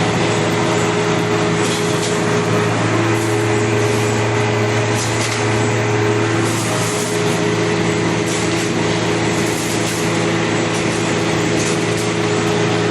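CNC wire straightening and cutting machine running with a steady mechanical hum and whirr, with faint clicks every second or so.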